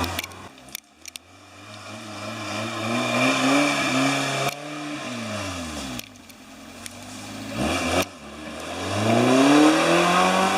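Off-road vehicle's engine revving hard: its pitch climbs for a few seconds, drops away, then climbs again and gets louder near the end.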